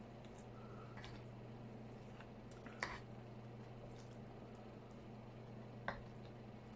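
Quiet eating with a metal fork: two sharp clicks of the fork, one about three seconds in and one near six seconds, with a few fainter ticks, over a steady low hum.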